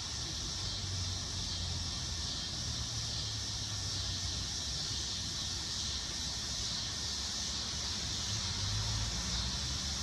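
Dog-day cicada singing its mating call: a steady, unbroken high-pitched buzz, with a low rumble underneath.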